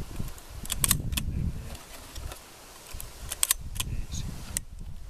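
Hatsan Escort Extreme 12-gauge shotgun being loaded by hand: sharp metallic clicks and small rattles of shells and action, a pair about a second in and a cluster around three to four seconds in.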